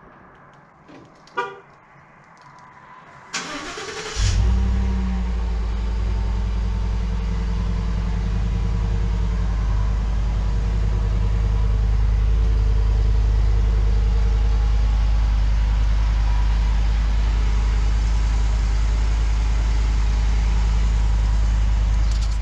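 Ford F-150's 5.0 Coyote V8 on its stock exhaust, remote-started cold. A short horn chirp comes about a second in, then the starter cranks for about a second. The engine catches and settles into a steady cold-start idle with a deep exhaust rumble.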